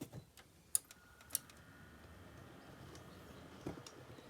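A few sharp clicks, then, about a second and a half in, a faint steady whir starts up and holds: a desktop PC being switched on and its fans spinning up.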